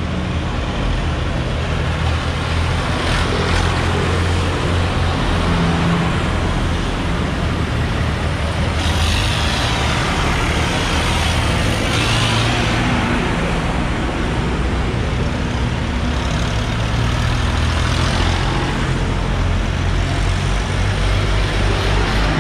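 Massey Ferguson 3070 tractor's diesel engine running steadily as it drives slowly past at close range, with more tractors following in procession.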